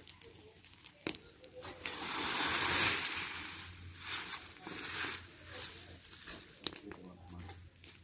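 Rake scraping and rustling through a smouldering pile of dry branches and leaves, with scattered crackles; a louder rustle swells about two seconds in.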